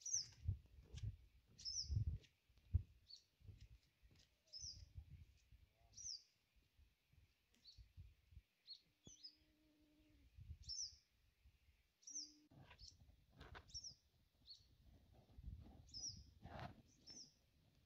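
A small bird calling: short, high, down-slurred chirps repeated irregularly about once a second, over faint low bumps and rustling.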